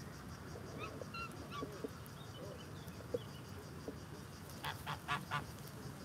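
Domestic geese honking on the water: scattered short calls, then a quick run of four louder honks near the end.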